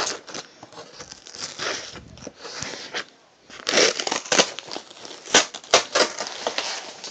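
Packaging being torn open and crumpled by hand: irregular rustling and ripping with several sharp snaps, busiest in the second half.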